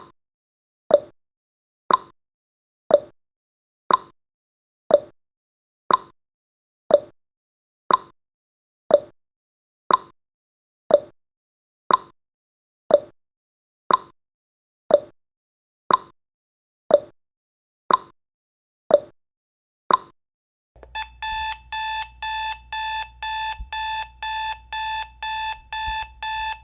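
Countdown timer sound effect: a clock-like tick once a second for about twenty seconds, then, as the count hits zero, an electronic alarm-clock beeping in rapid, loud pulses.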